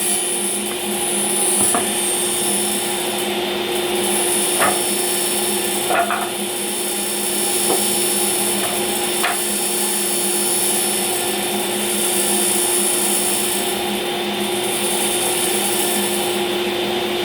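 A woodworking power saw running steadily with a constant hum and a high whine while scrap wood is cut. A few light knocks of wood being handled come in the first half.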